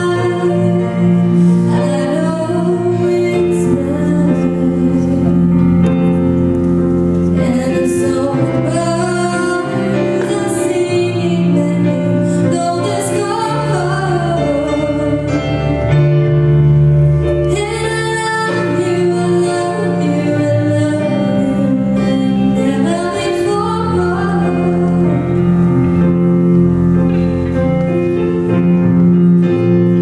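A woman singing a slow song into a microphone, accompanied by an electric guitar.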